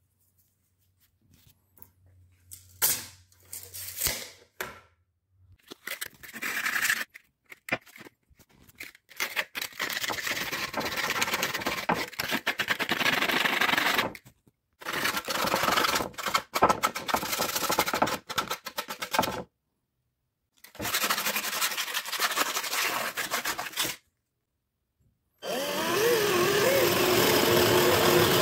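A wooden board being hand-sanded with a sanding block in several long runs of rough rubbing, after a few scattered scrapes and taps. Near the end a power drill with a spade bit starts boring into the board, running steadily with a motor whine.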